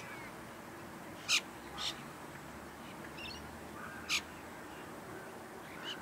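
Common myna calls: three short, sharp calls, loudest about a second and a quarter in, with another just after and a third about four seconds in, plus brief fainter chatter between them and a faint call near the end.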